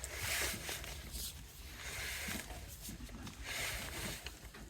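Electrical service wire being pushed up through a conduit pipe, rubbing and scraping in repeated swishes about every second and a half.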